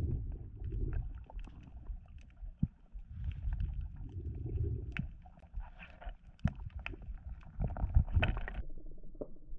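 Muffled underwater sound of a diver swimming: low rumbling swishes of water that surge three times, loudest a little past eight seconds in, with scattered sharp clicks and crackles throughout.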